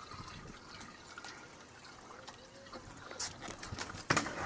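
Faint trickling water, with a few sharp knocks or slaps near the end, the last one the loudest.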